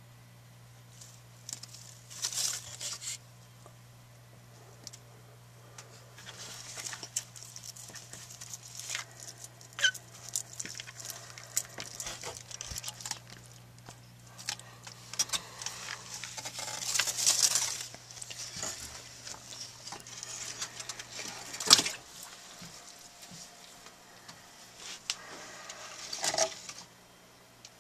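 Irregular rustling and scratching with scattered clicks from handling inside a Chinese water dragon's enclosure, with loose bedding and wood being moved about. One sharp, loud click comes about three quarters of the way in. A steady low electrical hum runs underneath.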